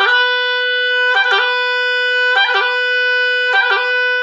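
Oboe holding a steady B in a bright, reedy, bagpipe-style tone. It is broken four times, about every 1.2 seconds, by a quick grace-note ornament (high G, B, low G) snapped in before the B, with the air never dropping.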